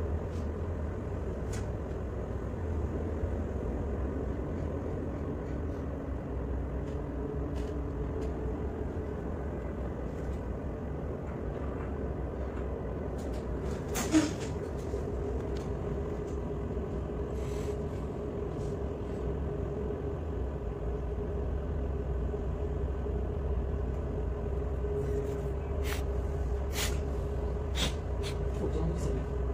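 A harbour tug's engines running steadily, heard from inside the wheelhouse: a low drone with a steady hum over it, a few faint clicks and one sharp knock about halfway through.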